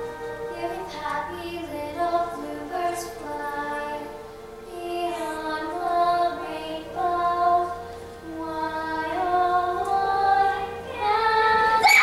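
A young girl singing solo, a slow melody of long held notes, over a steady sustained accompaniment.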